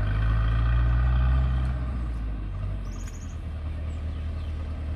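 Low, steady rumble of an idling vehicle engine. It swells louder for the first two seconds, then settles back.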